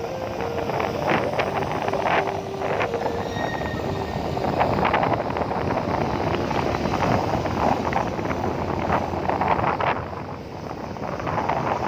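Wind buffeting the microphone in uneven gusts over a steady low engine rumble.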